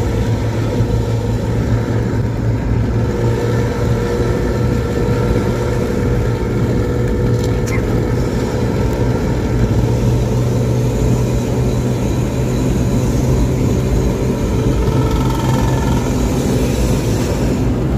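Intercity bus engine with a growling ('ngorok') exhaust, running at highway speed in a loud, steady drone.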